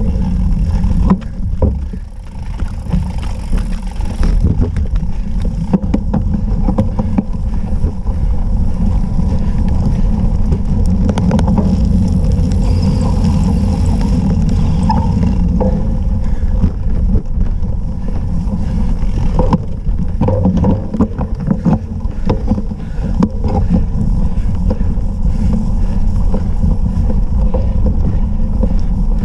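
Steady low rumble of wind on the on-board camera's microphone while a cyclocross bike is ridden over dirt, gravel and grass, with scattered clicks and rattles from the bike over bumps.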